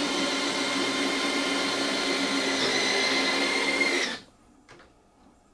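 JP Hobby electric landing-gear retracts on a large model jet running as the gear folds up: a steady motor whine that stops abruptly about four seconds in, when the gear is fully up. The retraction cycle completes properly.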